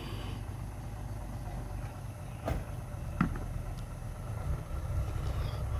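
Truck running slowly, a steady low engine hum, with two short sharp clicks about halfway through.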